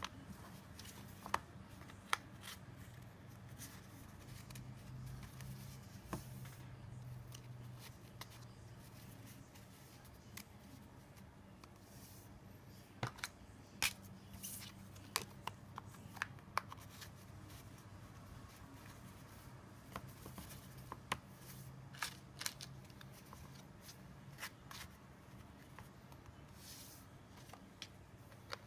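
Plastic cards being slid in and out of the slots of a fabric card holder and handled on a desk: scattered light clicks and scrapes, in clusters, over a low steady hum.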